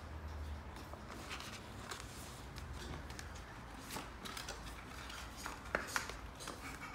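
Handling noise: soft rustling and light clicks as bundles of synthetic soft dread hair and their plastic-and-card packaging are moved about in the hands, with two sharper clicks close together near the end.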